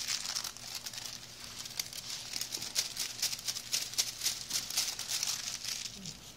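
Sheet of weighing paper crinkling and rustling as it is handled and tipped to pour calamine powder into a porcelain mortar: a continuous fine crackle that thins out near the end.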